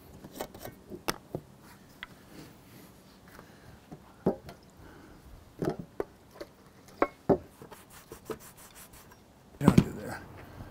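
Cloth rubbing over a rubber RV roof as the surface is wiped clean before the solar panel mounts go down, with scattered clicks and knocks from handling a small can. A louder knock comes near the end.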